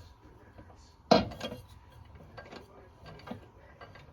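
Kitchen items being handled: one sharp clatter about a second in, followed by several lighter clicks and clinks.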